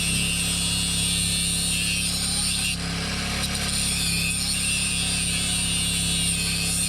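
Harbor Freight angle grinder running steadily against metal, with a constant high whine; it dips for a moment about three seconds in.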